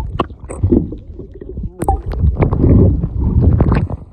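Sea water sloshing and gurgling over a camera microphone as it is plunged underwater and lifted back out, giving a muffled, uneven low rumble broken by knocks and splashes.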